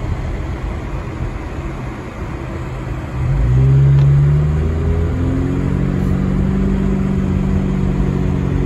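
Car engine and tyre noise on a wet road, heard from inside the cabin. About three seconds in, the engine gets louder as the car accelerates, its pitch rising, then it settles into a steady, higher hum.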